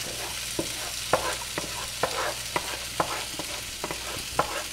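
Steady sizzle of chicken pieces frying in oil, with a wooden spoon scraping and knocking around a pan in short, uneven strokes as sugar is stirred into a sauce to dissolve.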